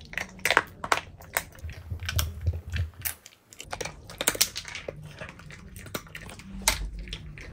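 Toy poodle crunching and chewing a hard dog cookie, a quick irregular run of crisp clicks and cracks.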